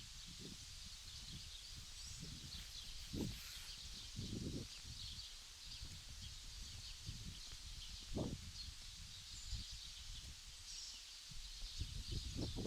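Small birds chirping and twittering continuously over open outdoor ambience, with irregular low rumbles or thuds now and then, the clearest about three seconds in, around eight seconds in and near the end.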